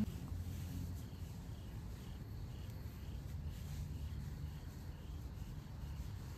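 Faint insects chirping in short, evenly repeated pulses over a low steady rumble.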